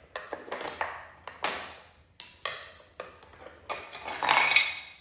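Flathead screwdriver prying the intake flappers out of a motorcycle's air inlet: a string of sharp clicks and scrapes, with a louder ringing clatter a little past four seconds in as a part comes free.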